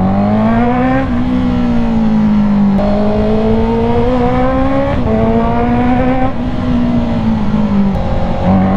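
Honda CB650R in-line four-cylinder engine running through a full titanium exhaust while riding. The engine note rises and falls, with several sudden steps in pitch.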